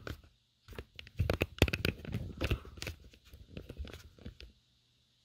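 Handling noises from a motorcycle helmet being moved about on a desk: a run of irregular clicks, knocks and scrapes from about a second in, stopping about four and a half seconds in.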